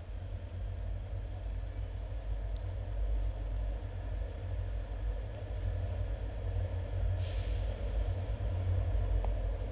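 Diesel freight locomotive approaching slowly, a deep steady engine rumble that grows gradually louder, with a brief hiss about seven seconds in.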